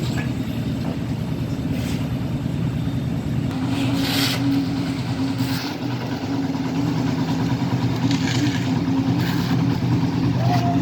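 An engine running steadily with a low, even drone, with a few short noisy bursts over it.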